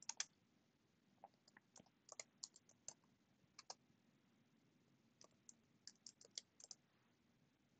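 Faint typing on a computer keyboard: quick runs of keystrokes with short pauses between them, stopping about seven seconds in.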